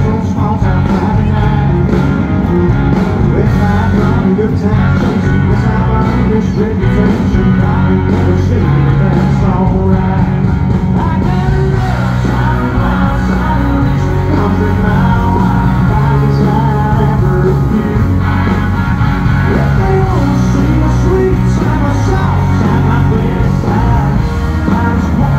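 Country band playing live and loud through a concert PA, a man singing lead over electric guitars, heard from out in the crowd.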